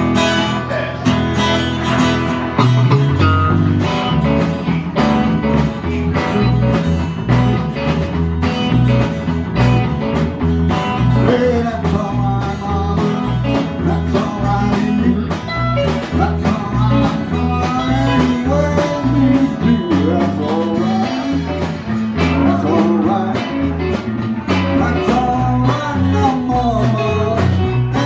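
A small live band playing an upbeat song with a steady beat: electric and acoustic guitars, electric bass and a drum kit.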